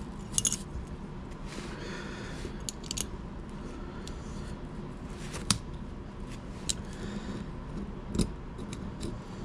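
Small metal knife parts clicking and scraping as a reworked part is handled and fitted into an OTF automatic knife's housing, with a handful of sharp clicks spread through and a short scrape about two seconds in.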